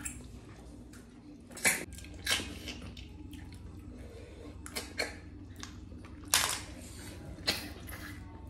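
Snails being sucked out of their shells by hand while eating snail curry: about half a dozen short, sharp slurps and clicks, a second or so apart.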